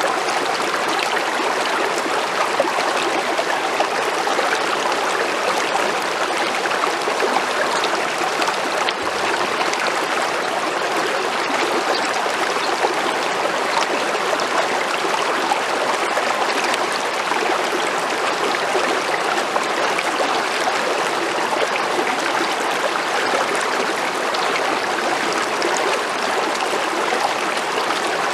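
A small creek flowing steadily over rocks, an even rushing of water with no let-up.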